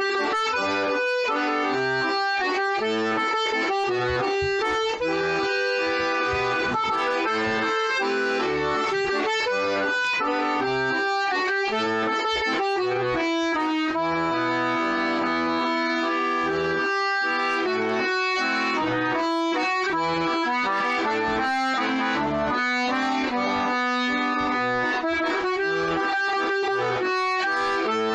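Two-row Castagnari diatonic button accordion playing a tune solo: a sustained reedy melody over regularly pulsing bass notes from the left-hand buttons.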